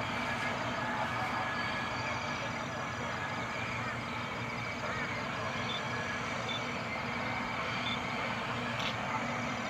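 Diesel cane-train locomotive running steadily in the distance as it approaches, over a constant outdoor hiss, with a few short high chirps in the middle.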